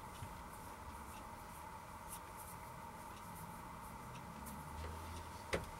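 Quiet room tone with a steady hum and faint scattered crackles, then a couple of sharper crackles near the end.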